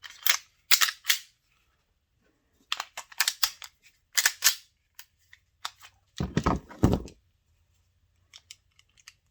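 Sharp metallic clicks and snaps as small parts of a G2C mechanism are pushed and slid back into place during reassembly, with two heavier clunks about six and seven seconds in.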